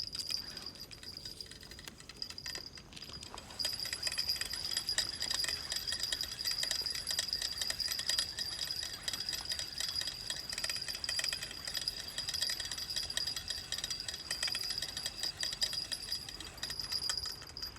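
Cicadas buzzing: a steady, high-pitched, rapidly pulsing shrill that grows louder about three and a half seconds in and stops abruptly at the end.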